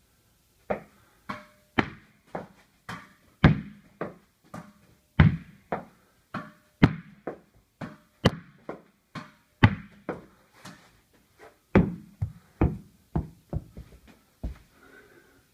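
Tennis ball struck with a racket and rebounding off the walls and floor of a small, bare room. It makes a quick run of sharp, echoing knocks and thuds, about two a second, that stop shortly before the end.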